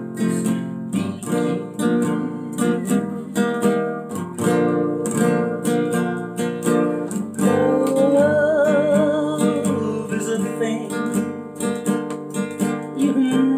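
Old nylon-string classical guitar strummed in a steady rhythm. From about halfway through, a man's voice holds one long, wavering sung note.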